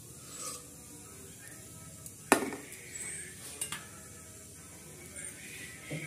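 Metal spatula clinking on steel cookware: one sharp clink about two seconds in with a short ring, and a lighter one about a second later, over low background noise.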